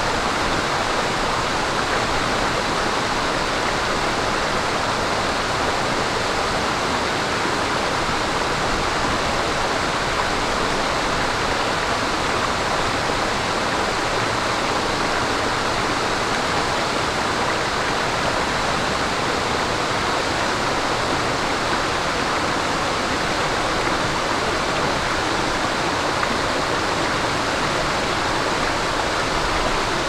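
Mountain stream flowing and babbling over rocks: a steady, unbroken rush of running water.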